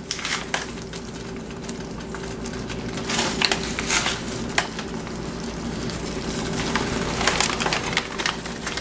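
Pot of chili cooking on the stove, sizzling steadily, with scattered short clicks and taps of kitchen handling.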